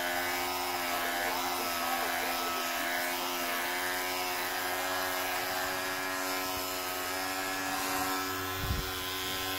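Electric hair clipper running with a steady buzz at an unchanging pitch. A brief low bump near the end.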